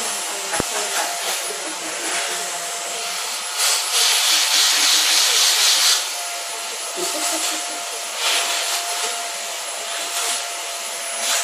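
Vacuum cleaner running, its brush nozzle drawn over a cat's loose fur: a steady motor whine under a rushing hiss of suction. The hiss swells louder for about two seconds in the middle and briefly twice more near the end.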